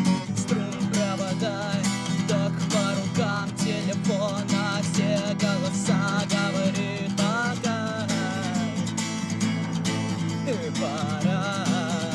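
Cort AD890CF acoustic guitar strummed steadily in a song accompaniment. From about a second in, a wavering higher melody line plays above the chords.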